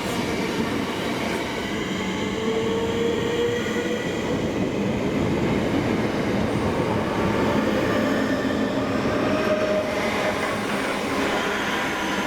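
A train running through the station: a steady, loud rumble of wheels on rails, with faint whining tones rising and fading now and then.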